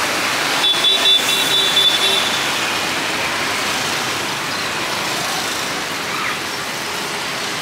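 Steady street traffic noise with a constant hiss. A thin high-pitched tone sounds for about two seconds, starting just under a second in.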